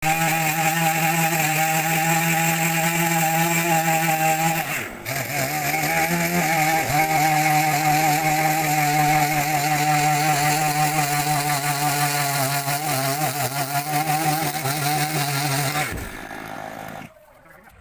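Chainsaw engine running at high revs. The revs dip briefly about five seconds in and come back up, then the saw drops off and stops near the end.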